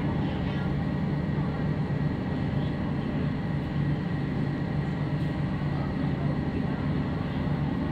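Boat's engine running with a steady low rumble.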